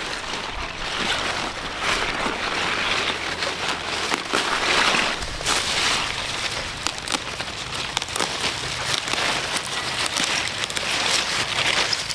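Leafy greens being picked and handled by hand: leaves rustling and stalks crackling, with dry straw mulch crunching underfoot in a run of small irregular clicks.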